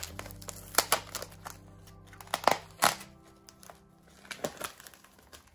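Shredded-newspaper packing and a clear plastic bag around a plant pot crinkling and rustling in hands, with a few sharp crinkles. Soft background music plays under it, its held low notes ending about three seconds in.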